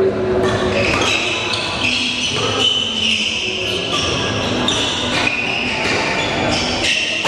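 Badminton rally: rackets striking the shuttlecock several times, mixed with short high squeaks of court shoes on the floor.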